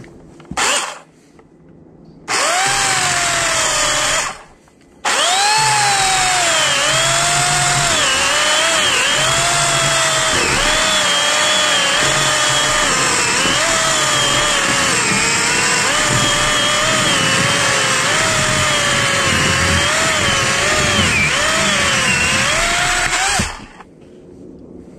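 Remington Limb N Trim 8-amp corded electric chainsaw: a short blip, a run of about two seconds, then a long cut through a log. Its motor whine dips in pitch and recovers over and over as the chain loads in the wood, and it stops near the end.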